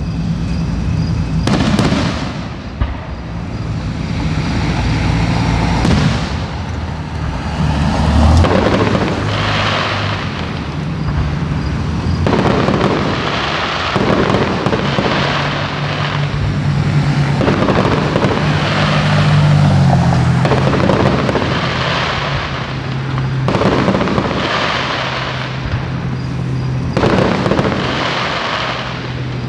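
Fireworks display: aerial shells bursting one after another, booms and crackle about every second or two, over a low hum that steps up and down in pitch.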